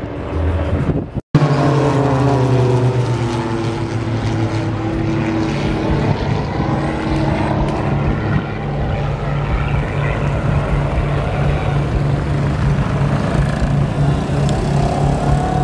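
Piston engines of several small propeller aerobatic planes flying past in formation: a steady engine drone whose pitch falls as they go by. It starts abruptly about a second in, after a brief gap.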